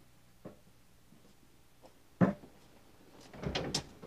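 A sharp knock about two seconds in, then a door being opened, its handle and latch rattling in a quick run of clicks near the end.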